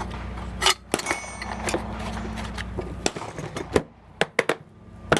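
Hard plastic rifle case being closed and latched: a string of sharp plastic clicks and knocks, with a steady low hum in the background that stops about three seconds in.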